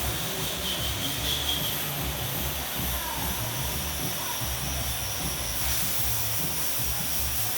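A lathe running, giving a steady machine noise with a hiss and a faint high whine over an uneven low rumble.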